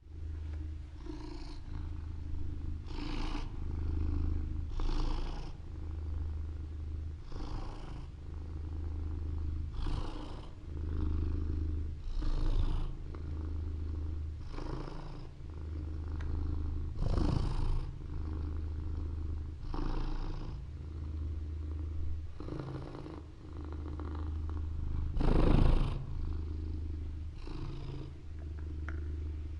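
Domestic cat purring steadily at close range, the low rumble swelling with each breath about every two and a half seconds.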